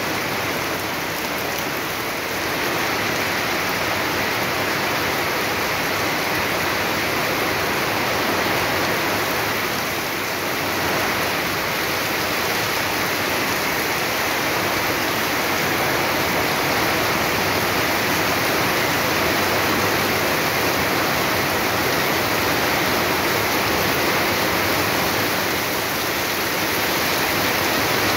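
Heavy rain pouring down, a steady dense hiss with no letup.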